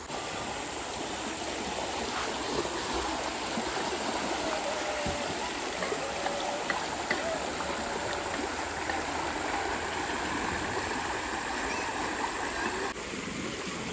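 Shallow, stony river flowing steadily: a constant rush and babble of water over small rocks. The water sound drops a little, suddenly, near the end.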